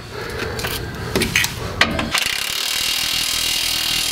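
Clicks and scraping of metal parts being fitted, then about two seconds in a DeWalt cordless impact wrench starts up and runs steadily, driving a bolt into the strut's lower mount on the control arm.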